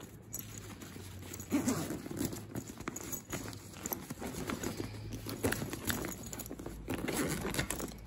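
Fishing tackle and packaging being handled: irregular light taps, knocks and rustles, over a low steady hum.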